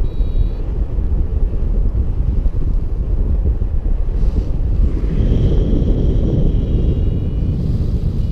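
Wind buffeting the microphone of a camera on a paraglider in flight, a dense low rumble. Faint high steady tones come in briefly at the start and again for a couple of seconds past the middle.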